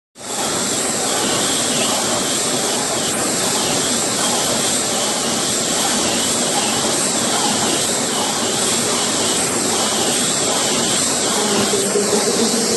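Automatic wire-mesh welding line running: a loud, steady mechanical hiss with a faint regular pulse about twice a second.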